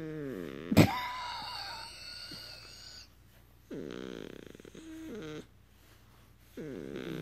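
Beagle puppy making its 'purring' sound: three drawn-out, snore-like breaths of about two seconds each, a little apart. A sharp click, the loudest moment, comes about a second in, followed by a brief higher tone.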